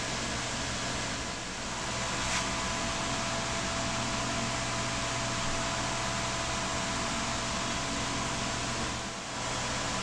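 Hobby CNC router spindle running with an eighth-inch ball-nose bit, carving a 3D relief into a 2x8 board: a steady hiss with a few held tones. It goes briefly quieter about a second and a half in and again near the end, with a single click a little after two seconds.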